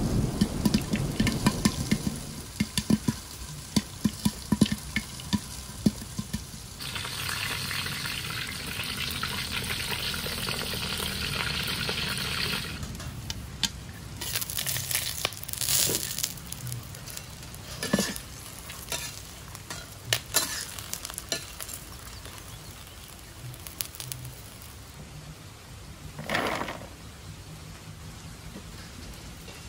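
Popcorn kernels popping in hot oil under a glass-lidded pan: sharp, irregular pops over a frying sizzle, with a steadier stretch of sizzling in the middle.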